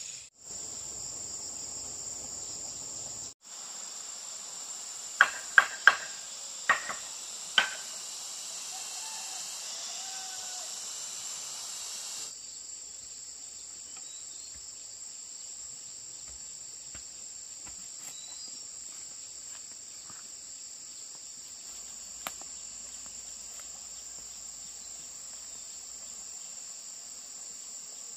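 Steady, high-pitched chorus of insects such as cicadas or crickets. Five sharp knocks sound about five to eight seconds in.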